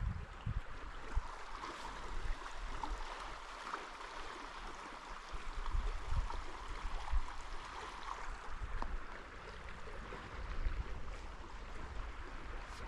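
Small spring-fed stream running and trickling steadily.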